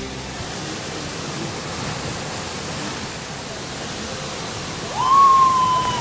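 Waterfall pouring into a rock pool, a steady rush of water. About five seconds in, a high whistle-like tone rises and holds for about a second.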